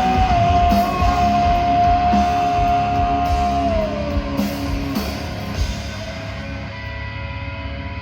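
Heavy metal band playing live: a long held guitar note bends down about four seconds in over drum hits, then the drums drop out and the band thins to ringing guitars.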